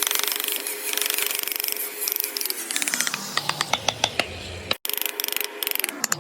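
Hand carving tools working wood: quick runs of scraping, tapping strokes, broken by two abrupt edits.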